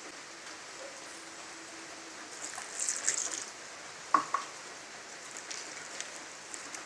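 A hand mixing a wet wheat-and-rice-flour batter in a bowl: soft, wet stirring sounds, loudest about three seconds in, with two sharp clicks a little after four seconds in.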